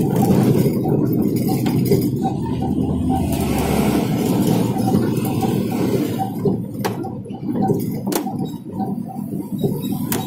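Road and engine noise heard inside a moving car's cabin: a steady low rumble, with a couple of sharp clicks or rattles in the second half.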